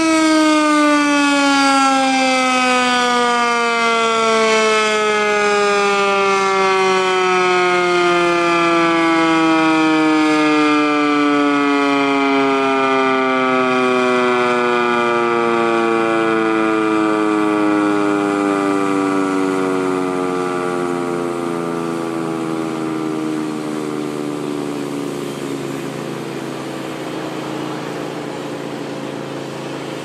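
Sentry 14V-B outdoor warning siren winding down at the end of a test, its pitch falling slowly and steadily as it coasts, growing a little quieter toward the end.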